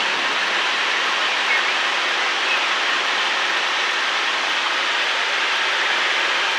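Cessna 172 cabin noise in flight: engine, propeller and rushing air blend into a steady, even hiss with no change in level.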